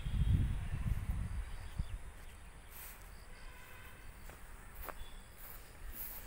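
Low wind rumble on the microphone in the first two seconds, then quiet rural outdoor ambience with faint chirping and footsteps through grass.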